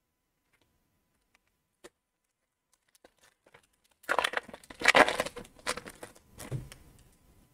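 Foil wrapper of an Upper Deck Series One hockey card pack crinkling and tearing as it is opened: a few faint clicks, then about three seconds of loud crinkling starting about four seconds in.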